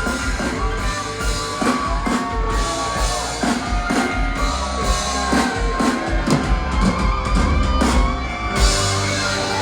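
Rock music with a drum kit and an electric lead guitar playing bending, gliding notes over a steady beat.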